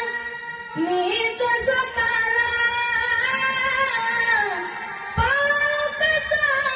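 A high voice singing a slow melody of long held notes with sliding ornaments; about five seconds in, one phrase ends and the next begins with an upward slide.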